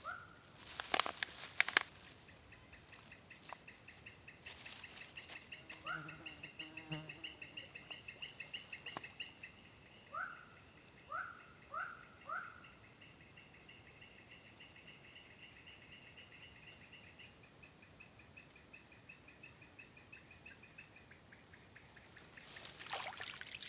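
Swamp-side insect trilling steadily in a rapid pulsing chirr for most of the stretch, fading out a couple of seconds before the end. A few short upward-sweeping calls from an animal, four in quick succession in the middle, sit under it, and a few sharp clicks and rustles come in the first two seconds.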